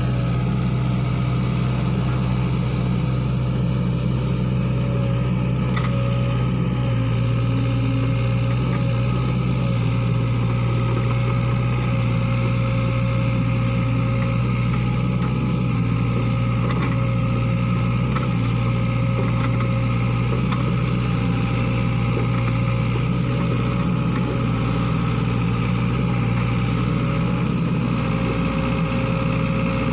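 Sany SY55C mini excavator's diesel engine running steadily while the machine digs a drainage ditch, with a constant low hum and a thin steady whine above it.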